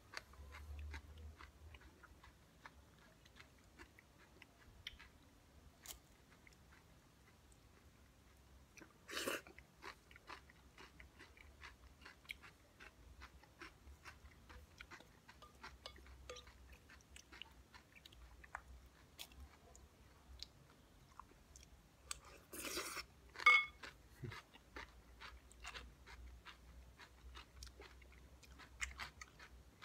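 Close-up chewing and crunching of a raw vegetable salad of cucumber, tomato, onion and white cheese. There are many small crunches throughout, with louder bites about nine seconds in and again around twenty-three seconds in.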